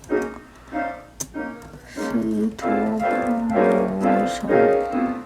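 Background music played on a piano-like keyboard sound, a run of held notes stepping in pitch, with a single sharp click about a second in.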